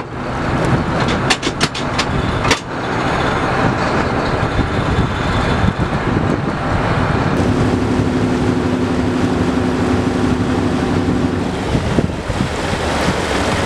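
Fishing boat's engine running steadily, with wind on the microphone and rushing water. A few sharp knocks come between one and two and a half seconds in. A steady droning tone joins from about seven and a half seconds to near twelve seconds.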